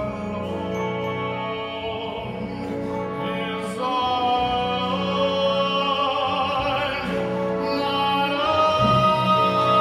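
A male singer's amplified voice holding long notes with vibrato over a full symphony orchestra, the music swelling louder and stepping up to a higher held note about eight seconds in.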